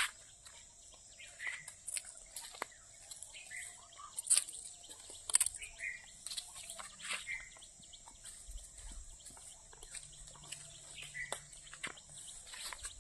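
Quiet outdoor ambience: short bird chirps every second or two, a few sharp clicks, and a steady thin high-pitched whine in the background.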